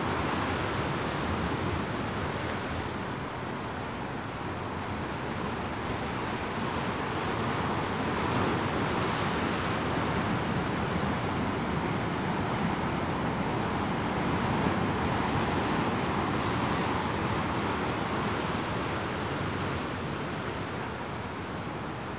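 Rough sea surf breaking over and washing among shoreline rocks: a continuous rush of white water with no distinct single crashes, swelling louder about a third of the way in and again after halfway.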